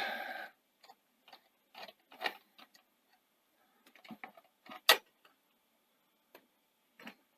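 Scattered small clicks and taps of a screwdriver and screw working on the underside of a Sony SL-C6 Betamax video recorder's deck, with one sharper click about five seconds in.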